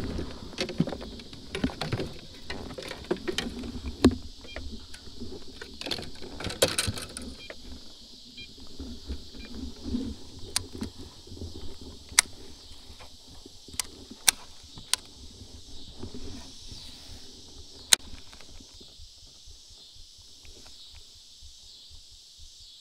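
Fishing gear being handled in a plastic kayak: a busy stretch of knocks and rattles over the first several seconds, then a handful of sharp single clicks spread over the next several seconds as a baitcasting rod and reel are readied.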